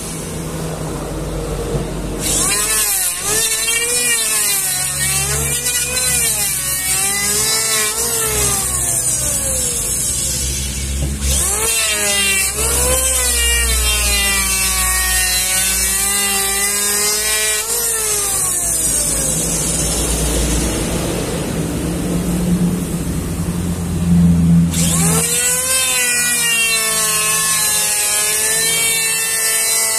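Handheld electric planer shaving along a timber beam: a steady cutting hiss, with the motor's whine dipping and recovering in pitch as it loads and unloads on each stroke.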